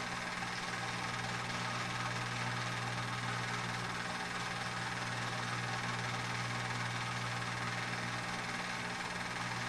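A film projector running: a steady, unchanging mechanical hum with an even hiss over it.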